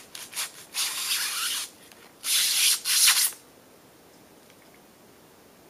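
Styrofoam packing scraping against a cardboard box as a spiral fluorescent light bulb is worked out of it: a few short scuffs, then two longer scrapes of about a second each.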